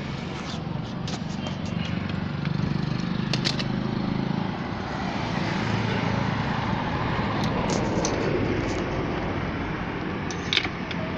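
Steady motor-vehicle engine noise from nearby traffic, swelling in the middle, with a few light clicks as the motorcycle's oil filler cap and dipstick are handled, the sharpest near the end.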